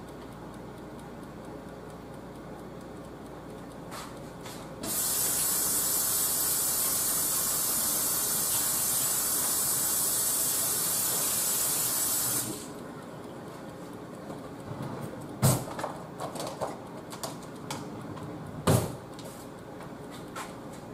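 A steady hiss that starts suddenly about five seconds in and cuts off just as suddenly some seven seconds later, then two sharp knocks a few seconds apart with light clicks between them.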